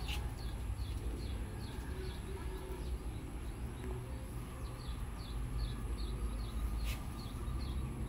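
A bird chirping over and over, short high chirps about two and a half a second, with a pause about midway, over a low steady rumble.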